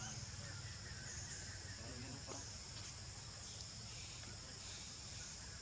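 Insects droning steadily in a high, even band, over a low steady rumble of outdoor background.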